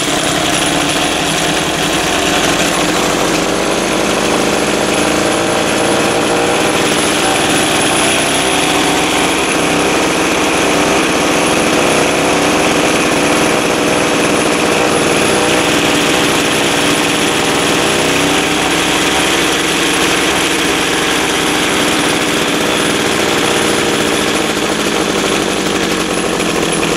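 3 hp Tecumseh single-cylinder gas engine revved up and running steadily, spinning a belt-driven arbor with a grinding wheel.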